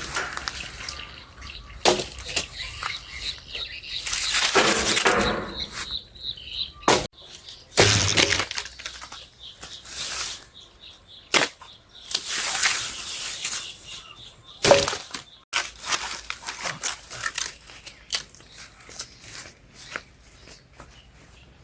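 Irregular rustling and swishing of hand work in vegetation or soil, with a few sharp knocks.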